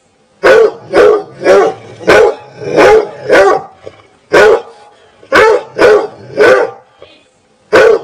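A dog barking in quick runs of short, sharp barks: six in a row, a single bark, then three more, and another starting near the end.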